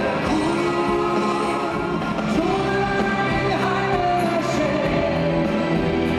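Live rock concert: male vocals singing long held notes over a full band with guitars.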